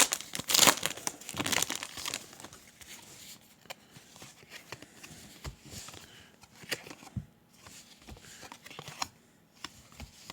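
Crinkling and rustling of plastic or foil packaging as trading cards and packs are handled, loudest in the first two seconds, then softer rustles and small clicks.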